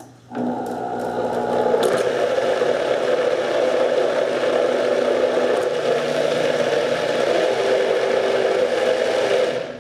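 High-powered countertop blender running, blending a runny batter; it starts just after the beginning, runs steadily for about nine seconds and switches off just before the end.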